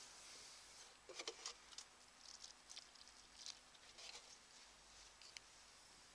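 Faint rustling and crackling of crumbly compost being scooped by hand from a plastic bucket and dropped into a planting hole, in a loose run of soft grainy scrapes starting about a second in.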